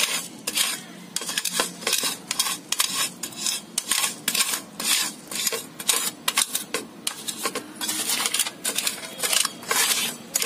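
Small stainless-steel bowl pressed and rubbed over coriander seeds on a plate, cracking the seeds into halves. The metal scrapes against the plate and seeds in repeated short strokes, roughly two a second.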